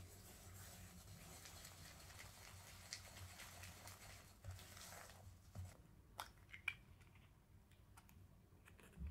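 Silicone spatula quietly scraping and pressing butter and granulated sugar against a glass bowl, a gritty rasp of sugar crystals. After about five and a half seconds this gives way to a few sharp cracks and clicks as an eggshell is cracked and pulled apart.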